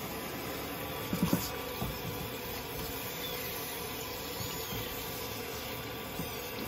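Water spraying steadily from a hand-held shower head, rinsing a kitten in a plastic basin, with a couple of short knocks about a second in.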